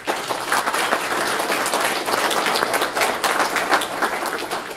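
Audience applauding: a dense round of many hands clapping that starts suddenly and holds steady.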